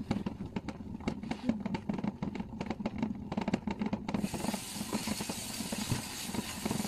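Pot steamer boiling on the stove, its lid rattling in quick irregular clicks over a low hum. About four seconds in, a steady hiss starts.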